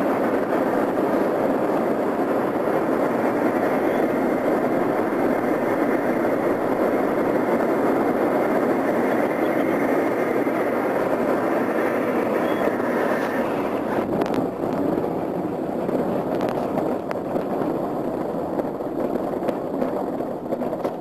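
Air rushing past the microphone on a Highlander light plane gliding with its engine off and propeller stopped: no engine sound, only wind. About 13 seconds in the rush drops and uneven knocks and rattles come in as the wheels touch down and roll over rough ground.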